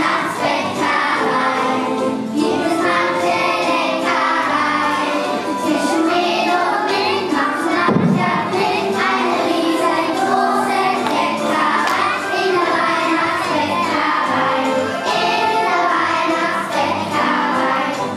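Primary-school children's choir singing a song together.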